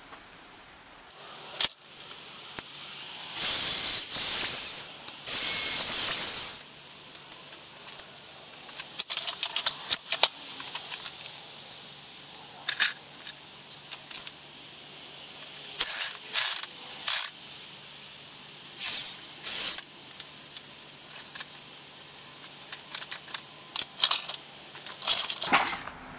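Corded electric drill boring into a wooden plank, run in trigger bursts: two longer runs of about a second and a half each a few seconds in, then a string of short quick blips later on, with small clicks and knocks of handling in between.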